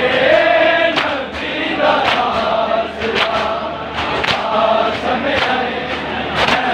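A crowd of men chanting a mourning noha in unison, cut by sharp slaps of hands on bare chests (matam) about once a second.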